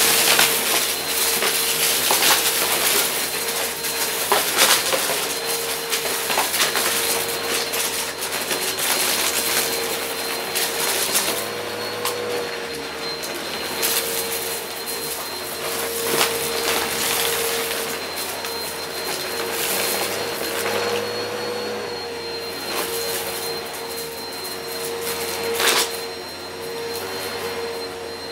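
Upright vacuum cleaner running with a steady motor whine while its brushroll sucks up shredded cardboard pieces from carpet. The pieces crunch and rattle up the nozzle in many sharp clicks, with a loud one near the end.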